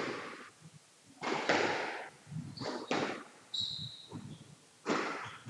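Squash rally: the ball knocking off rackets and the court walls, about six sharp knocks with a short ringing tail, and a brief high squeak of court shoes on the floor near the middle.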